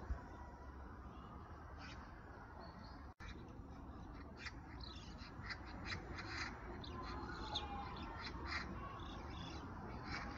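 Oriental magpie giving a rapid series of harsh chattering calls, thickest from about four to nine seconds in. This is the magpie's alarm chatter, aimed at a cat below.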